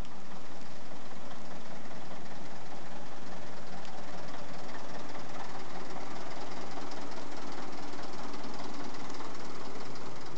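Vintage Kaelble heavy tractor unit's diesel engine running as the truck drives slowly past close by, a steady heavy clatter.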